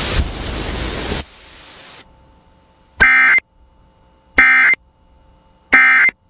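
Emergency Alert System end-of-message code over FM radio: three short, shrill warbling data bursts about a second and a half apart, after about a second of radio static hiss that then cuts out.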